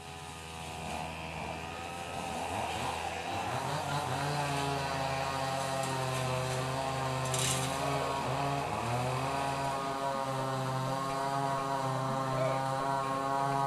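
An engine running steadily, its pitch dipping briefly and recovering a few seconds in and again about eight seconds in.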